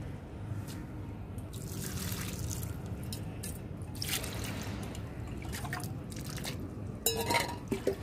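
Handfuls of wet pita saag leaves being moved by hand from a steel bowl into an iron kadai, with water dripping and trickling. A few light knocks of the metal vessels, the busiest near the end.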